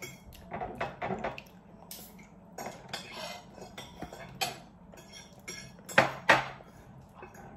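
Chopsticks clicking and scraping against bowls and plates in a string of short clicks, the loudest two close together about six seconds in.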